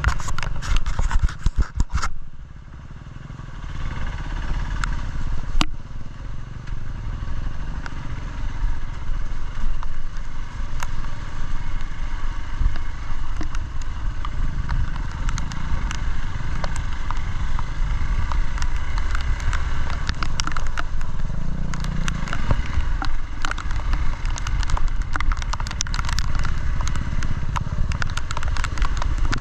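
Dual-sport motorcycle riding on a trail, the engine running steadily after a brief drop in level about two seconds in. Dense clicks and rattles at the start and scattered clicks throughout.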